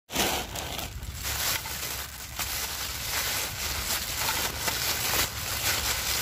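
Packaging being handled: irregular rustling and crinkling of paper or wrapping, over a steady low hum.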